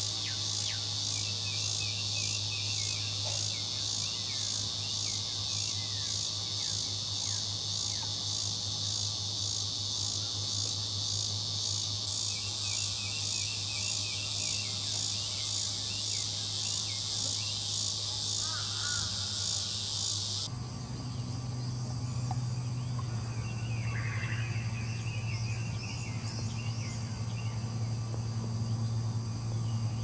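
Dense insect chorus: a steady, evenly pulsing high-pitched buzz, with a few faint short chirps over it and a low steady drone beneath. About two-thirds of the way through, the chorus cuts abruptly to a different, smoother buzz, and the low drone grows a little louder.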